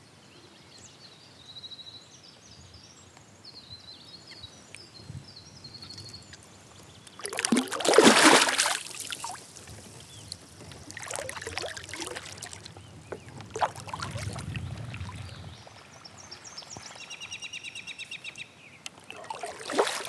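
Kayak paddle and water: splashing and trickling in the lake, with one loud splash about eight seconds in and smaller splashes after.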